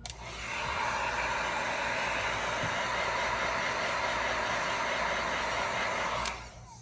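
Steady hiss of air blown from a blower tool at a phone repair bench, rising just after the start and cutting off abruptly about six seconds in.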